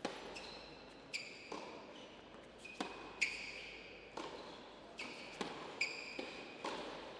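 Tennis rally: racket strikes and ball bounces on a hard court, sharp knocks every half second to a second, each echoing briefly in a large indoor hall.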